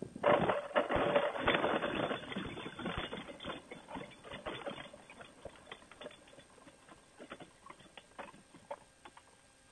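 A Fly-Pod paramotor trike with its engine dead touches down on grass a moment in, and its wheels and frame rattle and crackle through the grass as it rolls out. The rattling fades over about five seconds into scattered ticks and clicks as the trike slows to a stop.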